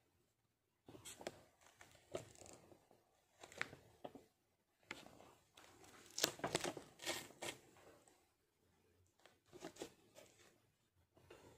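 Faint, irregular rustling and crinkling in short bursts, loudest about six to seven seconds in.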